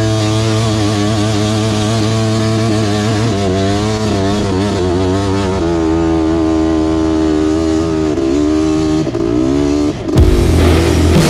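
Suzuki LT500R Quadzilla's 500 cc two-stroke single-cylinder engine running under load in sand. Its pitch rises and falls as the throttle is worked. About ten seconds in it breaks off sharply into a louder, different sound.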